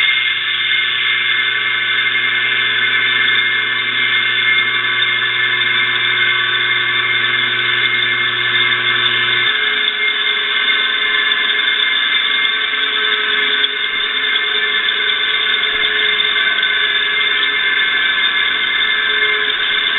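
Old electric motor running with a steady, high-pitched squeal and grinding from its rear bearing, which the owner suspects dust got into and scratched, even with fresh oil in it. A low electrical hum underneath stops about halfway through while the squeal carries on.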